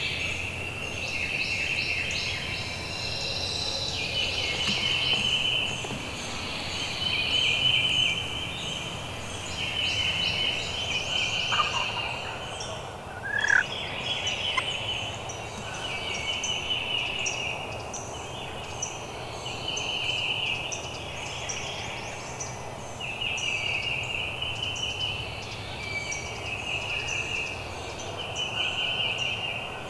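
Wild turkeys gobbling and calling close by. A high chattering phrase repeats every couple of seconds, and one louder rising call comes about halfway through.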